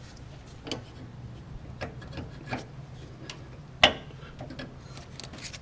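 Irregular light clicks and knocks, with one sharper knock a little under four seconds in, as a new front shock absorber is handled and worked up into its upper mount.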